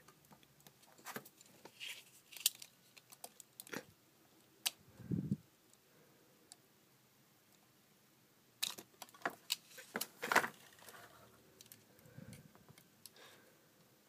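Scattered light clicks, taps and scrapes of a diecast model truck being handled while packing tape is cut from it with a utility knife, with a soft low bump about five seconds in and a busier run of clicks from about eight and a half to ten and a half seconds in.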